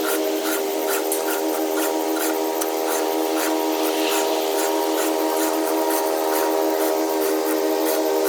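Round file rasping across the cutter teeth of a chainsaw chain in quick repeated strokes, about three a second, over a steady background tone.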